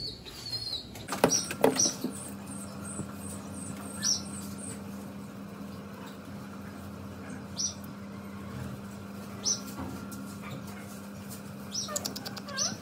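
A Trumpeter pigeon chick being handled: a flurry of rustling and wing flaps about a second in, then short high chirps from birds scattered through the rest. A steady low hum runs underneath.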